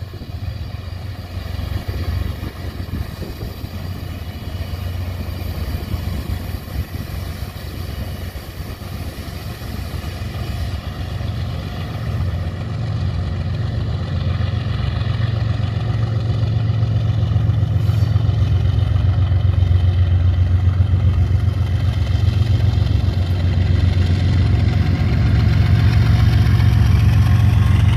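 Diesel locomotives at the head of a loaded coal train running past, a steady low engine drone that grows louder as they come close.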